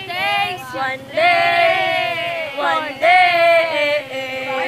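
Young people singing together in long held notes, with a low steady hum underneath that stops about halfway through.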